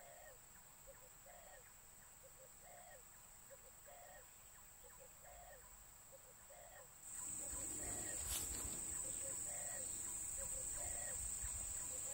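White-breasted waterhen (ruak-ruak) calling faintly, a short two-part note repeated evenly about once every three quarters of a second. About seven seconds in, a louder background hiss and a steady high-pitched whine come in.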